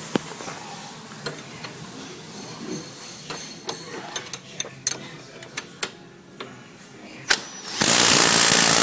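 Ratchet and wrench tightening a tie rod end nut onto a steel steering arm: scattered sharp metal clicks of the ratchet pawl, then a louder rasp about a second long near the end.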